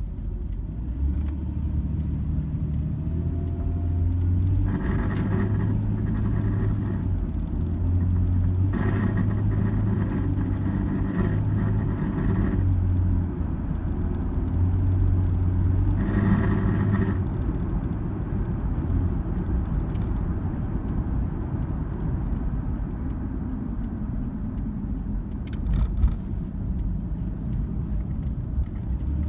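Engine of a 2002 Nissan Xterra droning as the throttle is opened and closed, with a metal-grinding buzz from under the passenger-side floor coming in three times for one to a few seconds each. The owner finds it worst at around 2000 or 3000 RPM; a mechanic took it for the exhaust rattling.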